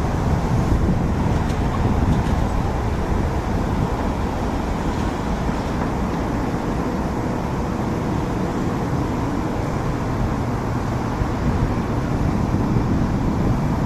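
Steady low rumble of the departing Airbus A320-232's IAE V2500 jet engines at takeoff power, heard from the ground.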